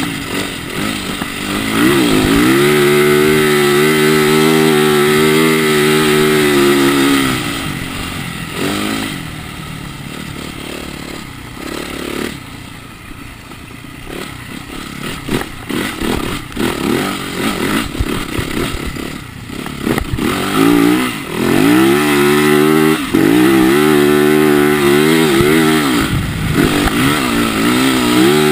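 2010 Yamaha YZ450F's single-cylinder four-stroke engine pulling hard, its pitch dipping and climbing again at gear changes. Through the middle it drops quieter and uneven, with knocks and clatter, then climbs hard through the gears again near the end.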